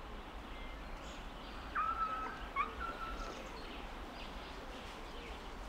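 Outdoor ambience with a steady low background, and a short whistled call about two seconds in: a quick rising note held briefly, then a second short rising note held.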